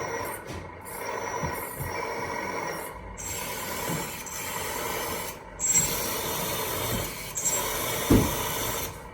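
Hydraulic pump of a Lesu 850K RC bulldozer running steadily with a rasping whir, mixed with the model's sound-module engine throttle sound, because the pump and throttle sound are switched on together. A short low knock comes near the end.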